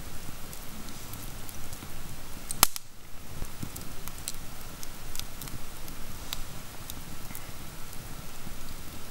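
Wood campfire crackling, with scattered sharp pops and one loud pop a little under three seconds in.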